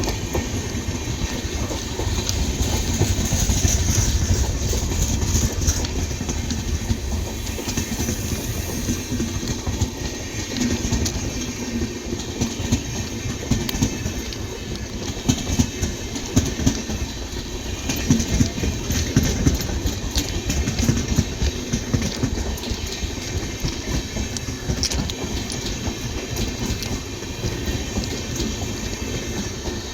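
Jan Sadharan Express passenger train rolling past, its coach wheels clattering over the rail joints in a continuous, rapid clickety-clack with a low rumble.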